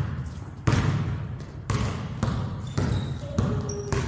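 Basketball being dribbled on a hardwood gym court, about six bounces, irregularly spaced half a second to a second apart, each echoing through the large hall.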